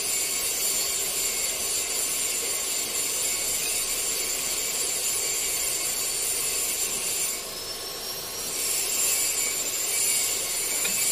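Gas welding torch flame hissing steadily while heating a metal part to braze it with an aluminum-alloy rod. The hiss drops for about a second past the middle.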